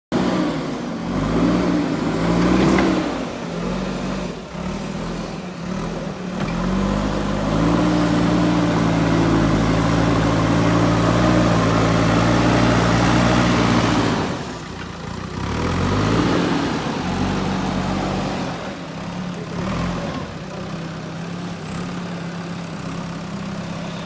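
JCB 3DX Super backhoe loader's diesel engine revving up and down as the machine works, then held at high revs under load for several seconds, the loudest stretch. About halfway it drops, rises briefly once more, and settles into steadier, lower running near the end.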